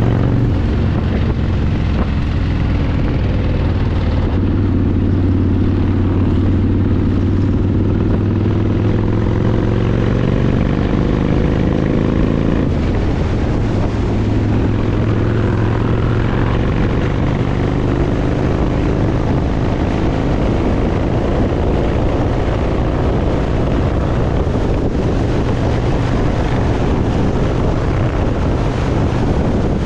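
Motorcycle engine running under way, its note climbing a little about four seconds in, with wind rushing over the microphone that grows to cover the engine in the second half.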